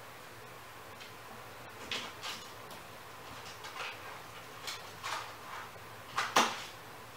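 Kittens pawing and scrabbling at a plastic pet carrier: a scatter of light knocks and rattles starting about two seconds in, the loudest near the end.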